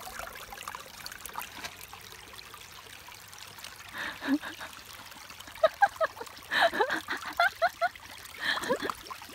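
Shallow mountain creek trickling over stones. About four seconds in, and more densely from the middle on, come bursts of splashing and gurgling as a man dips his face into the water to drink.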